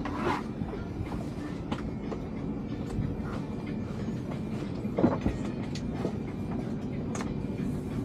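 Steady mechanical hum inside a small airliner's cabin during boarding, with scattered knocks and clunks of carry-on bags and overhead bins being handled, the loudest about five seconds in.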